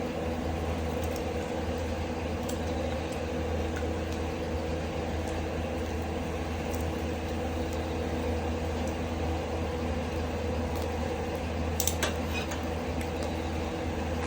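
Ceiling exhaust fan drawing smoke off a wood fire, running with a loud, steady hum that buries the fire's sound. A few faint crackles come from the burning firewood, with a sharper pop about twelve seconds in.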